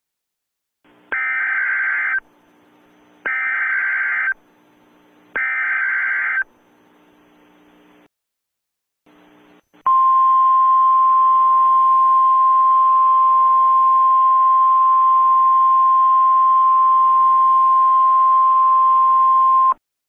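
Emergency Alert System header: three bursts of SAME digital data tones, each about a second long and about a second apart, followed by a single steady attention tone lasting about ten seconds over a faint hiss. The tone cuts off shortly before the end.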